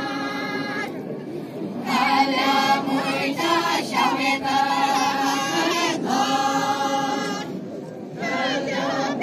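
A group of women singing a folk song together, unaccompanied, in long held phrases. There is a short break about a second in and another near the end.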